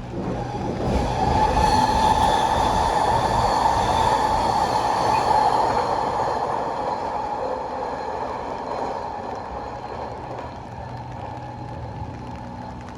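A vehicle passes by, swelling quickly to its loudest a couple of seconds in and then slowly fading away, with a steady low hum beneath.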